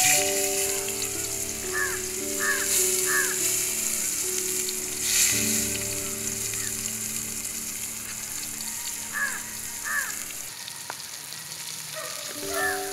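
Beef steak slices sizzling in hot oil in a frying pan over a wood fire, the sizzle swelling a few times in the first five seconds as pieces are laid in. Soft background music with long held notes and a few short chirps plays underneath.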